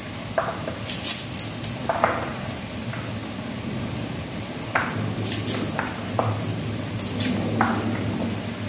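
Kitchen knife slicing sawi (mustard green) stems held in the hand: a series of short cuts at irregular intervals.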